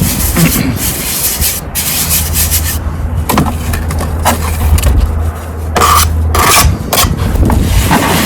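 Steel finger trowel scraping sand-and-cement mortar off a hawk and pressing it into the vertical joints (perps) of brickwork: a run of gritty, irregular rubbing scrapes. A low steady hum runs underneath until about six and a half seconds in.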